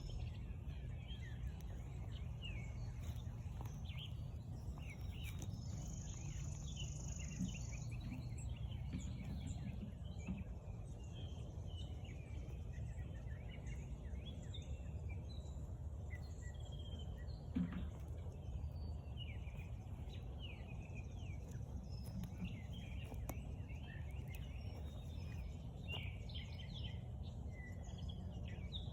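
Birds chirping and singing over a steady low rumble of outdoor background noise, with a brief high steady buzz for about two seconds and a single knock a little past halfway.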